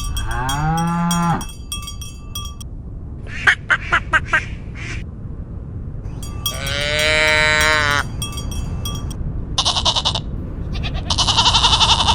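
Farm animals calling one after another: a cow moos with a rising pitch near the start, followed by shorter, higher livestock calls. A cowbell clanks lightly between the calls.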